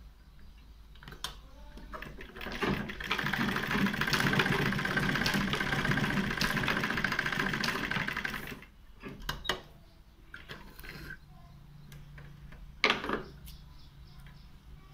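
Domestic sewing machine stitching a seam through layered cotton fabric, running steadily with a rapid fine rhythm for about six seconds before stopping. A few short clicks follow as the work is handled and the thread is cut with scissors.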